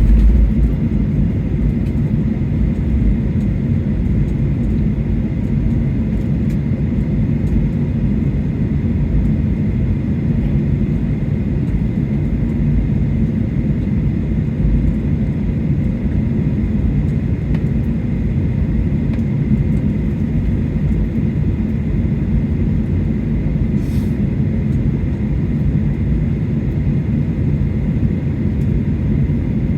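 Cabin noise of a Boeing 737-800 taxiing after landing: a steady low rumble from the engines at idle and the rolling gear, with a faint steady whine over it.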